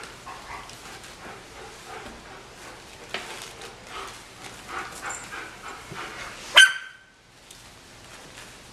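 Three-week-old puppies playing, with small yips, whimpers and scuffling. About two-thirds of the way through comes one sharp, high-pitched yelp, the loudest sound.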